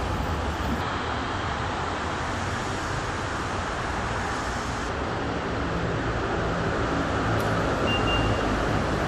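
Steady low rumble with a hiss over it, with a brief faint high beep about eight seconds in.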